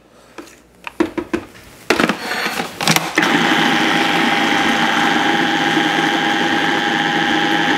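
A few plastic clicks and knocks, then about three seconds in a food processor's motor starts and runs steadily with a whine. It is pureeing softened cream cheese until smooth.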